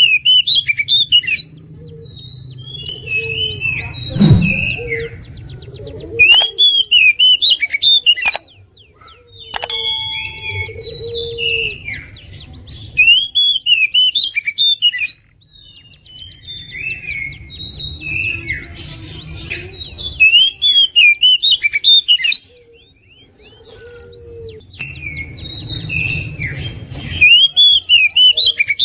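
Oriental magpie-robin singing loudly: repeated arching whistled phrases broken by rapid-fire runs of short sharp notes. There is a single thump about four seconds in.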